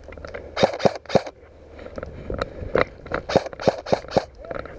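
A series of sharp clicks and knocks at uneven intervals: two loud ones about a second in, then a quicker run of them in the second half.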